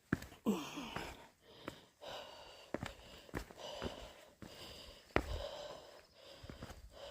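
A hiker's footsteps on a rocky, muddy trail, irregular steps and scuffs, with hard breathing between them.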